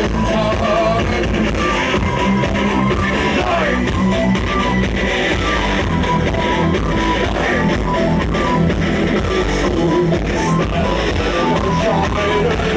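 Live industrial metal band playing loudly: heavy electric guitars, bass and drum kit, with some vocals.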